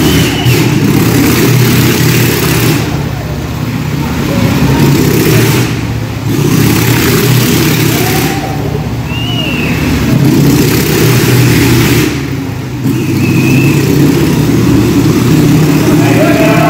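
A motorcycle running hard as it laps the vertical wooden wall of a Wall of Death, its sound swelling and fading about every three seconds as the bike sweeps round past the listener.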